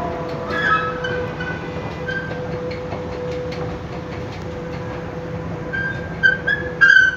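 Escalator running noisily, with a steady hum and low rumble under intermittent high squeaks and creaks from its mechanism. The loudest squeals come near the end.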